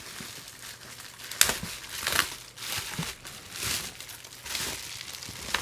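Plastic packaging crinkling and rustling in irregular handfuls as model pieces are unwrapped, with a sharp click about a second and a half in.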